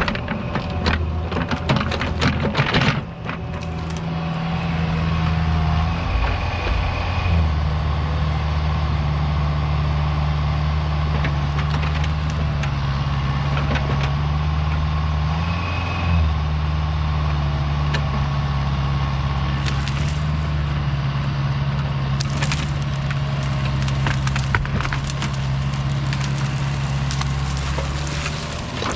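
Diesel engine of a tracked land-clearing machine running steadily under load, its pitch sagging and recovering a few times as it works. Wood cracks and splinters in bursts, in the first few seconds and again past the middle, as brush and logs are broken up.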